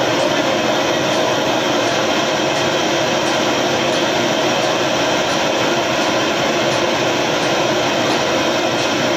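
Gas burner flame burning steadily under a submersible motor rotor, heating it: a loud, even rushing noise.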